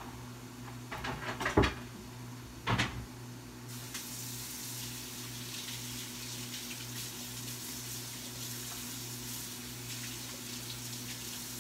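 A few sharp knocks in the first three seconds, then a kitchen faucet running steadily into the sink, over a steady low hum.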